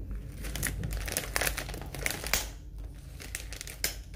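Crinkling of a foil-lined potato chip bag as it is handled, an irregular run of crackles.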